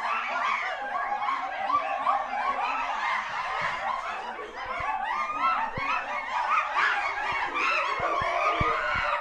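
A group of chimpanzees calling: many short, pitched calls overlapping in a continuous chatter, with a few faint low knocks in the second half.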